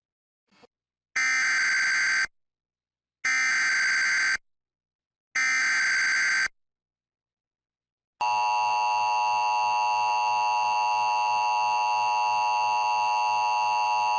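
Emergency Alert System alert opening: three bursts of SAME header data tones, each about a second long and a second apart, then about eight seconds in the steady EAS attention signal starts and holds. This sequence marks the start of a broadcast emergency alert, here a severe thunderstorm warning.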